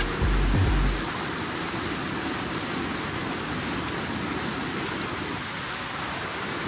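Debris flow surging down a creek: a thick, muddy flash flood carrying black burn-scar debris, making a steady rushing noise. A heavy low rumble drops away about a second in.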